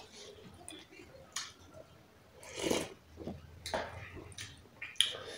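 Quiet eating sounds at a table: chewing and mouth smacks from people eating rice by hand, with a few soft clicks and clinks of a spoon and bowls.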